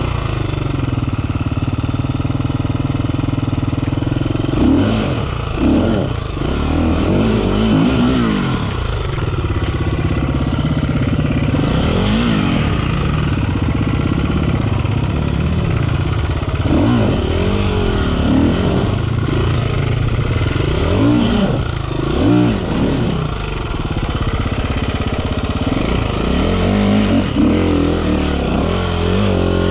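KTM 350 EXC-F enduro motorcycle's single-cylinder four-stroke engine under way on a dirt trail, running at a steady pitch for the first few seconds, then revving up and down again and again as the throttle is worked.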